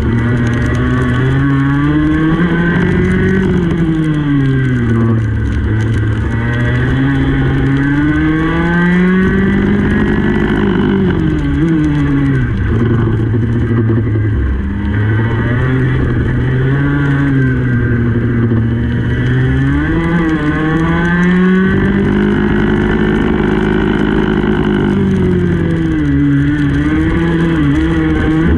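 Racing kart engine heard from the kart itself, its pitch climbing under acceleration and dropping as it slows for each corner, over and over through a lap, held high on a longer straight near the end.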